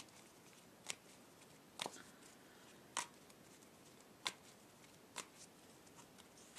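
A deck of tarot cards being shuffled by hand, with about six sharp card snaps roughly a second apart.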